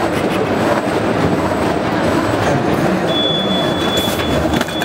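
Automatic two-line perforating machine for coreless bags on roll, running with a steady mechanical noise. A thin, steady high tone joins it about three seconds in.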